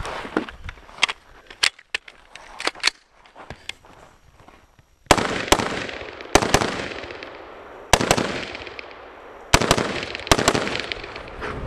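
AR-15 rifle shots: about nine loud cracks, mostly in quick pairs, each with a long echoing tail. They start about five seconds in, after a few seconds of sharp clicks and knocks as the rifle is handled and loaded.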